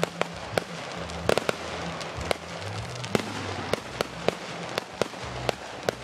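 Fireworks going off: a dozen or so sharp, irregularly spaced pops and bangs over a continuous crackling hiss.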